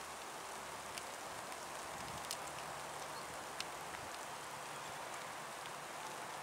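Faint steady outdoor hiss with a low hum from a distant, approaching SM42 diesel-electric locomotive, broken by a few light ticks.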